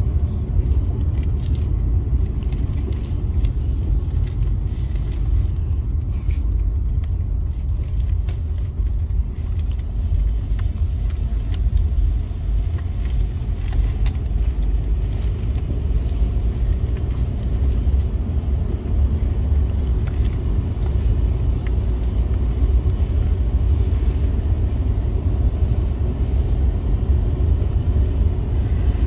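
Car driving on a wet road, heard from inside the cabin: a steady low rumble of engine and tyre noise, with light ticks now and then.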